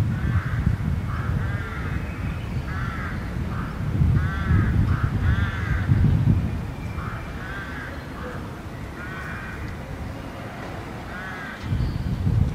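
Crows cawing repeatedly in short, arched calls, over a low, uneven rumble.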